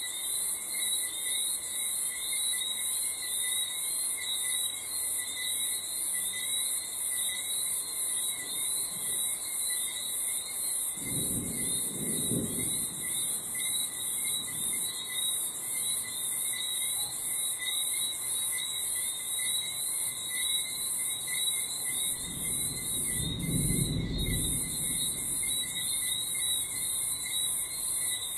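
Crickets and frogs calling in a dense, steady night chorus of fast pulsing chirps. Distant thunder rumbles low twice, about a third of the way in and again past two-thirds.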